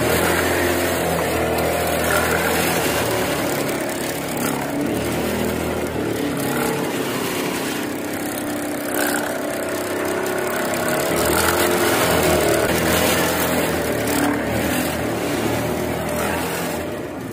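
Industrial sewing machines running while stitching mesh vegetable bags: a steady, loud mechanical motor hum that shifts slightly in pitch.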